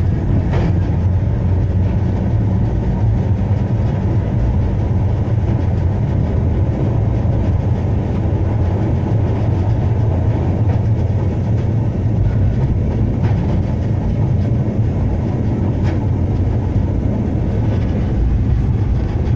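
Blackpool tram 715 running along the rails, heard from on board: a steady low rumble of the moving tram, with a couple of faint clicks over the track partway through.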